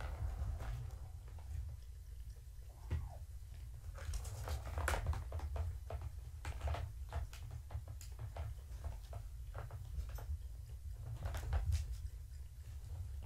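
Kittens batting the ball around a Catit plastic trackball toy: irregular clicks and rattles of the ball and plastic track, over a steady low hum.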